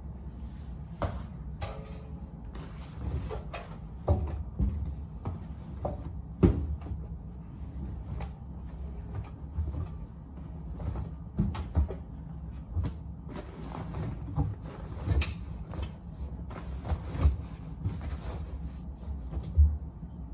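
Miele W Classic WDA211 front-loading washing machine running a 40 °C coloureds wash: a steady low motor hum with irregular thuds and knocks as the laundry tumbles and drops in the drum.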